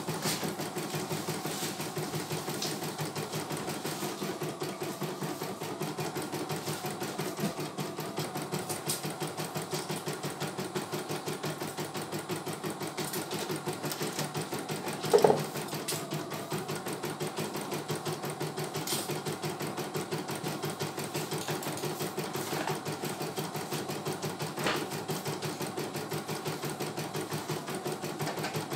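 CNY E900 computerized embroidery machine stitching a design, its needle running in a rapid, steady rhythm. A short, louder buzz stands out about halfway through.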